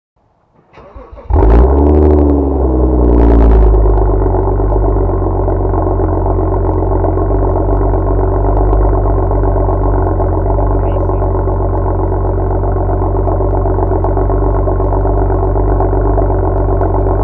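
2011 BMW 335xi's N55 turbocharged inline-six starting through a Billy Boat Racing sport exhaust. A brief crank, then the engine catches with a start-up flare that rises and falls in pitch, and settles into a steady idle about four seconds in.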